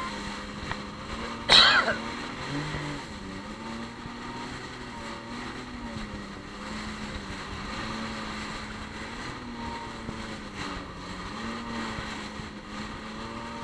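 Yamaha WaveRunner jet ski engine running under way, its drone slowly rising and falling in pitch as the throttle and the hull's contact with the water change, over a rush of water and spray. A short, loud burst of noise comes about a second and a half in.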